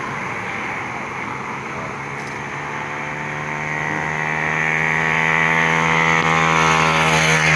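A road vehicle's engine approaching with a steady hum that grows louder over the last few seconds, then passing close by right at the end as its pitch begins to drop.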